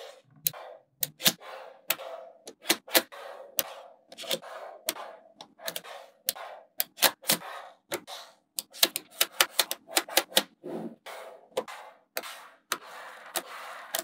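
Small magnetic balls (neodymium magnet spheres) clicking and snapping together as blocks of them are pressed onto a structure. The sharp clicks come irregularly, often in quick pairs or clusters, with softer rattling of the balls between them.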